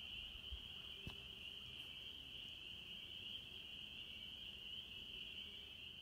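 A faint chorus of spring peepers, their high peeps blending into one steady high-pitched trill. A single faint tap about a second in.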